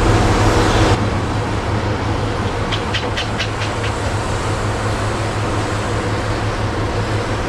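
Heavy logging machinery running steadily, with a quick run of about six sharp metallic clicks about three seconds in, like somebody tapping on a big chunk of iron. The cause is unknown: the crew guesses a hog grapple's tines closing on its blade or the delimber chain, and the uploader suspects the delimber boom cracking.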